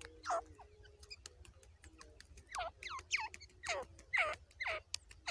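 Female grey francolin (teetar) calling: a run of quick, sharply down-sliding notes, about two a second, that starts after a single note near the beginning and keeps going through the rest.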